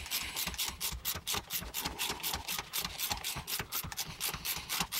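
A hand socket ratchet clicking in a quick, even run, about five or six clicks a second, as it backs the 18 mm nut off a tie rod end.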